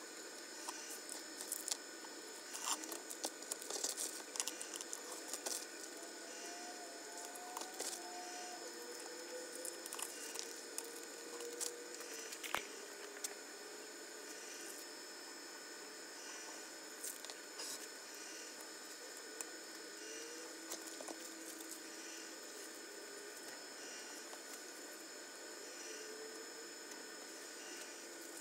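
Masking tape being cut and peeled off a freshly painted outboard motor hood: faint, scattered crackles and ticks, most of them in the first half.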